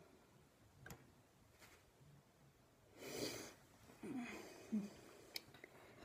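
Mostly a quiet room, with one breathy exhale about three seconds in and a couple of faint isolated clicks.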